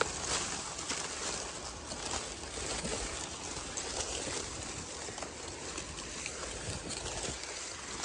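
Leaves and twigs rustling as tree branches are handled and pushed aside close to the microphone. It is a steady hiss with a few faint crackles.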